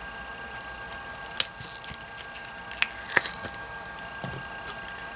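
Flexible silicone mold being peeled and popped off a cured epoxy resin trinket dish, with a few sharp clicks and light knocks of the hard resin against the rubbery mold, the loudest about three seconds in.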